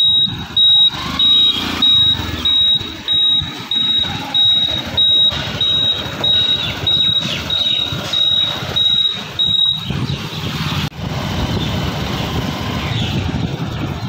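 A vehicle's electronic beeper sounding a high, even beep about twice a second over road and engine noise while riding. The beeping stops about ten seconds in, and steady traffic noise goes on.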